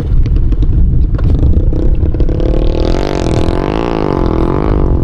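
A motor droning steadily, its pitch rising and falling in waves near the middle, over a constant rumble of wind on the microphone.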